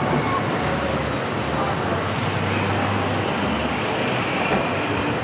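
Street traffic: a steady wash of passing vehicles with a low engine rumble, and faint voices.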